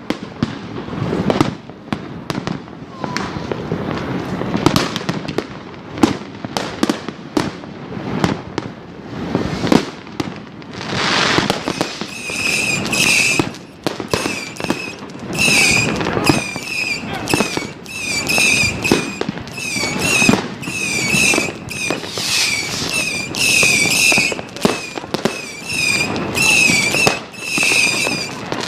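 New Year's fireworks going off in a dense barrage of bangs and crackles, with a rocket's hiss partway through. From about halfway on, short high whistling tones repeat roughly every half second over the bangs.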